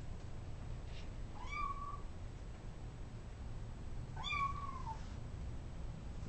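A cat meowing twice, two short rising-then-falling meows about three seconds apart.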